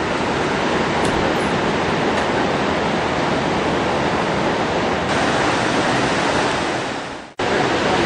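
Niagara River rapids rushing, a steady even roar of churning white water. The sound cuts off for a moment near the end, then picks up again.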